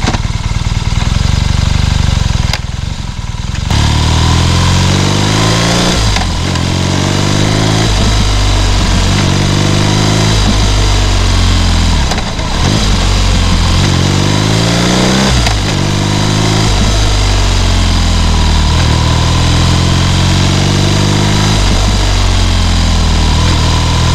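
BMW R nineT Scrambler's 1170 cc air/oil-cooled boxer twin pulling away from a standstill. The engine note rises through the gears, falling back briefly at each upshift, three times, then settles to a steadier cruise.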